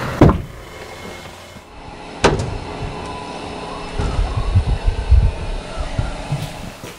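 Two sharp, loud knocks about two seconds apart, over the low rumble of a Scania R730 V8 timber truck that swells for a couple of seconds near the middle.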